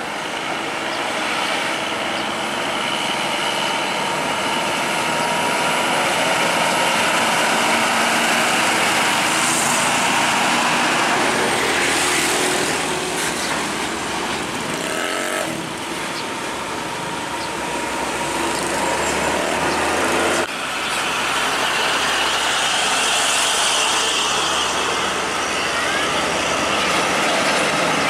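Heavy diesel container trucks running on the road: a Hino 500 tractor-trailer's engine and tyres as it pulls past and away, then, after an abrupt change about twenty seconds in, another truck running.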